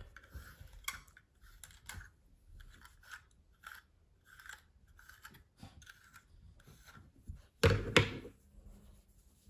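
A pet grooming brush raked through a Yorkshire terrier's long coat in short scratchy strokes, about two a second. Near the end come two loud bumps close together.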